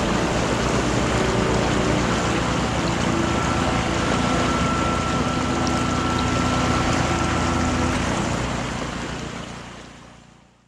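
Water rushing and splashing along a kayak's hull as it moves through a creek's current, with wind buffeting the microphone. It fades out over the last two seconds.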